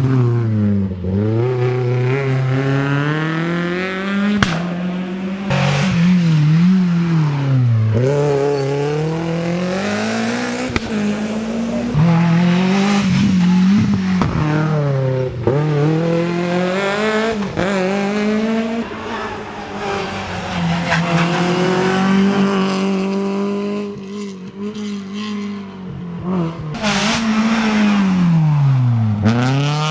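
Rally car engines revving hard through a hairpin, among them a Citroën Saxo and a Peugeot 206. The pitch rises steeply as each car accelerates through the gears, then falls on braking and lifting off. Near the end it drops deeply and climbs again as one car brakes into the bend and powers out.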